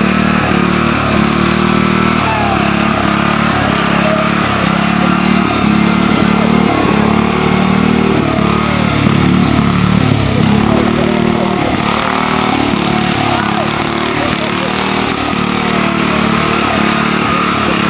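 Red riding lawn tractor's engine running hard while the tractor is driven through a hay-bale course, its pitch dipping and rising again and again.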